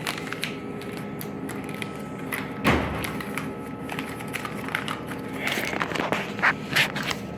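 Steady machine hum from a vending machine while a dollar bill is handled at its bill acceptor, with one loud thump about three seconds in and a few clicks and rustles near the end.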